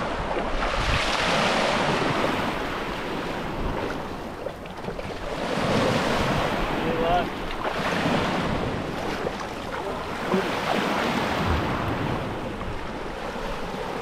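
Small ocean waves washing in over a shallow rock reef, swelling and ebbing in surges every few seconds, with wind noise on the microphone.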